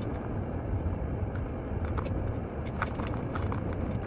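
Steady low rumble of a car driving, engine and tyre noise heard from inside the cabin, with a few faint clicks.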